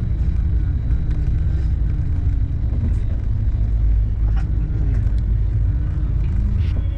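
Steady low rumble of a moving passenger train heard from inside the coach, with a few faint ticks over it.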